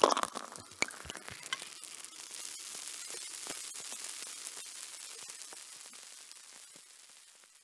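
Crackling static hiss with scattered sharp crackles, loudest at the start and fading steadily away to nothing.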